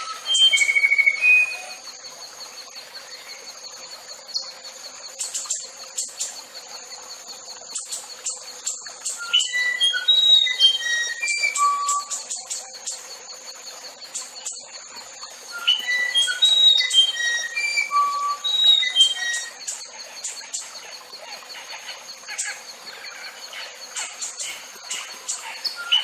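Musician wren (uirapuru-verdadeiro) singing: phrases of clear, flute-like whistled notes that jump between pitches. It comes in three bouts, at the start, around ten seconds in and around sixteen seconds in, over a steady high buzz.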